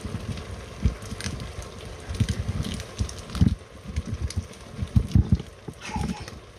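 Irregular low thumps and bumps with a few short knocks, over the steady bubbling hiss of pots cooking on the stove.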